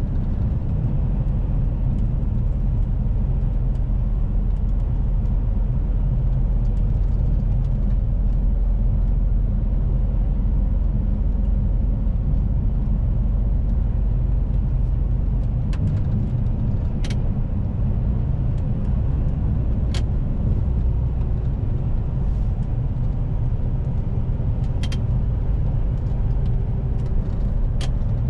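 Mercedes-Benz Arocs truck's diesel engine running steadily under way, with road noise, heard from inside the cab. A few short sharp clicks come in the second half.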